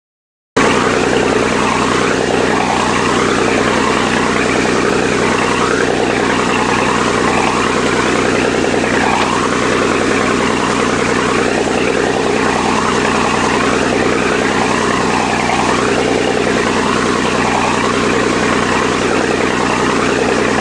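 Boat engine running steadily under a constant haze of water and wind noise, cutting in abruptly about half a second in.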